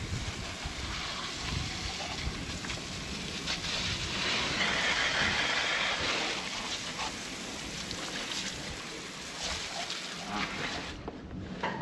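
Garden hose spray gun jetting water onto slate patio tiles: a steady hiss of spray spattering on the stone, loudest midway, cutting off shortly before the end.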